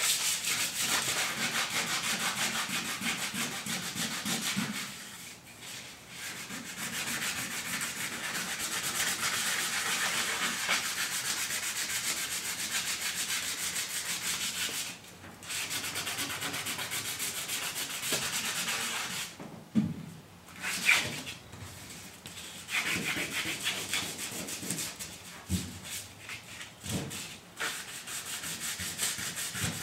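Truck bed floor being hand-sanded with a sanding pad: a steady, scratchy back-and-forth rubbing that stops briefly a few times. A couple of sharp knocks come about twenty seconds in.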